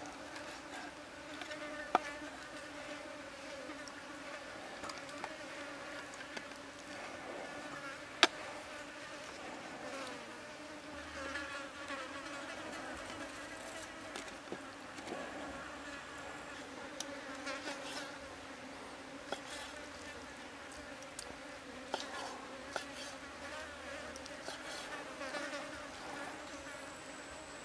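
Flying insects buzzing close by in a steady, wavering hum. A few sharp knocks of a knife on a wooden chopping block cut through it, the loudest about two and eight seconds in.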